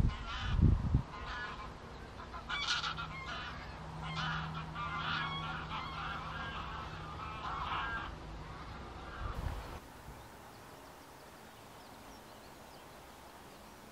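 A flock of greylag geese honking in flight, calling over and over, until the sound drops to a quiet, even background about nine and a half seconds in. Two low thumps in the first second are the loudest sounds, and a faint low hum runs underneath the calls for a few seconds.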